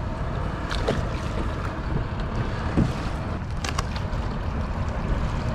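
Wind buffeting the microphone over water moving around a plastic kayak, a steady low rumble, with a few short clicks and knocks.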